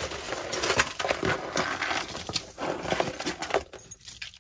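Loose costume jewelry (metal chains, bracelets and beads) clinking and rattling as it is handled and sorted through, a dense run of many small clinks.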